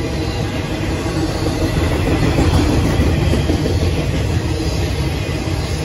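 Intermodal freight train's container well cars rolling past: a steady, loud rumble of steel wheels on the rails.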